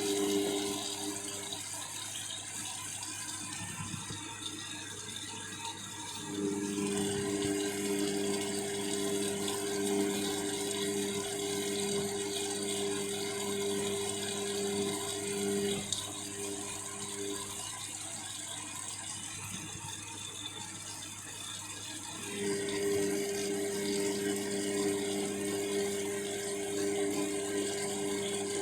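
Washing machine motor tumbling an overloaded drum of wet laundry, about 10 kg, running in stretches with a steady hum. It stops early on, starts again about six seconds in and runs for about ten seconds, pauses, then starts again about 22 seconds in. The load is heavy enough to strain the motor.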